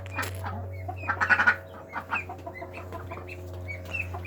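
Chickens clucking, a string of short calls close together, the loudest about a second in, over a steady low hum.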